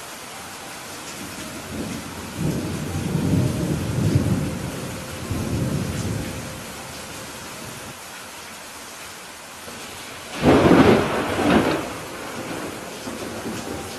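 Steady rain with thunder: a low rolling rumble swells from about two seconds in and fades a few seconds later, then a louder, sharper thunderclap comes about two-thirds of the way through.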